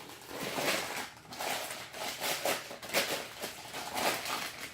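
Irregular rustling with light knocks and clicks as packaging is handled, the oily cylinder sleeves being unwrapped.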